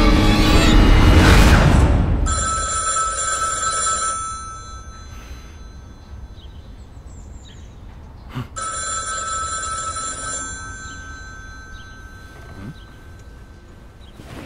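Red rotary desk telephone ringing twice, each ring about two seconds long and several seconds apart, after a loud low swell that dies away in the first two seconds.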